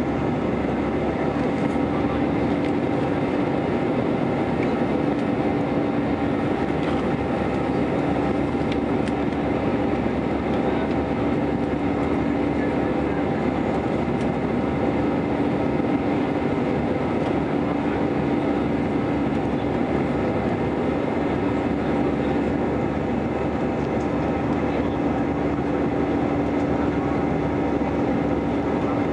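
Airbus A320-200 cabin noise in the climb after takeoff: the steady roar of the jet engines and rushing air heard from a seat over the wing, with a hum that swells and fades every few seconds.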